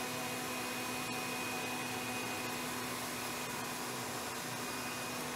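Steady hum and hiss of a running fan, with a faint high whine in it.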